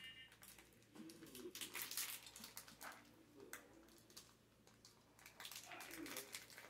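Candy bar wrapper crinkling faintly in short, irregular rustles as it is peeled back from the bar.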